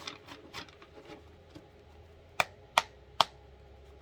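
Tarot cards being handled: light scattered ticks, then three sharp clicks in quick succession past the middle as cards are snapped or tapped against a surface.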